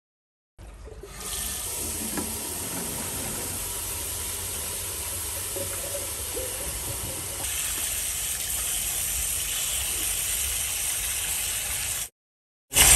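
Water running under pressure with a steady hiss, getting brighter about seven seconds in. It stops abruptly near the end, followed by a brief loud burst.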